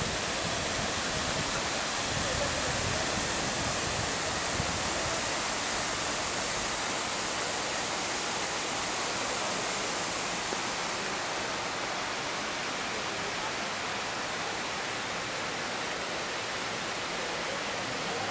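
Jet fountain spraying and splashing into its basin: a steady rushing hiss of falling water, a little softer in the second half.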